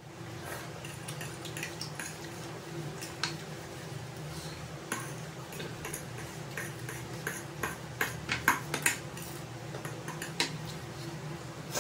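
Close-miked eating sounds: chewing and wet mouth clicks over fried chicken wings and noodles, with chopsticks and a fork clicking against the plate. A cluster of sharper clicks comes about eight to nine seconds in, over a low steady hum.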